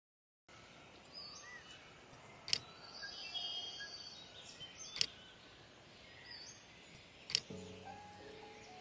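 Soft outdoor ambience with scattered bird chirps, broken by three sharp clicks about two and a half seconds apart. Music begins near the end.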